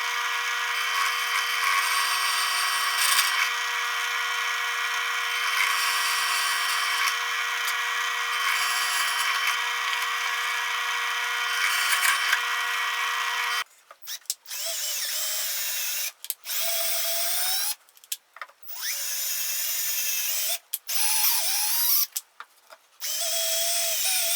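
Electric drill with a 1/4 inch bit drilling holes in wood: a steady motor whine runs unbroken for about fourteen seconds. Then come a series of short drill runs, each starting and stopping abruptly, with the pitch rising and falling as the motor spins up and down.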